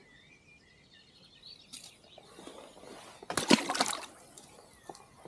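A short burst of water splashing a little past the middle, with a smaller splash earlier and birds chirping in the background.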